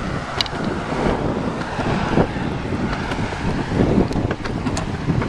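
Wind rushing over the microphone of a camera on a moving bicycle, with the rolling rumble of the ride and a few sharp clicks.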